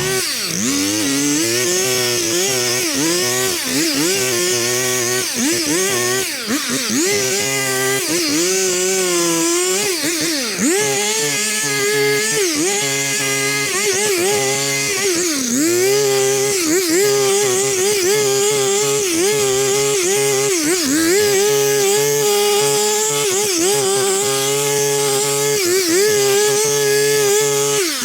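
Stihl Farm Boss two-stroke chainsaw running at high revs and cutting, its pitch dipping again and again as the chain bites into thick overgrown weed stalks and brush, then climbing back.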